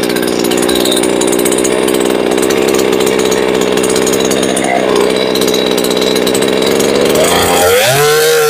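Remington 46cc two-stroke chainsaw engine, its muffler baffles removed so the exhaust comes straight out, running at high speed. About seven seconds in it drops back to a lower, unsteady idle.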